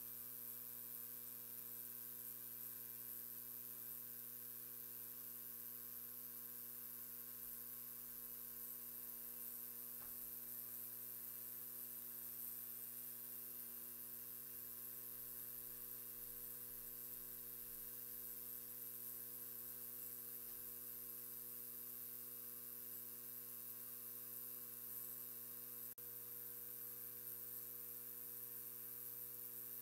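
DADI DA-968 ultrasonic cleaner running: a steady electrical hum with a faint high hiss above it, with no change throughout, as it cleans mechanical keyboard switch housings in citrus cleaning solution.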